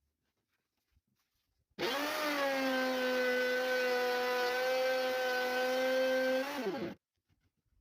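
Electric power tool motor switched on for about five seconds: a steady high whine that comes up to speed quickly, holds, and winds down when it is released.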